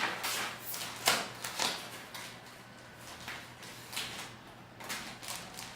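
Quiet handling sounds of craft materials: rustling paper and a few short soft knocks and scrapes as wooden popsicle-stick pieces are moved on a sheet of paper.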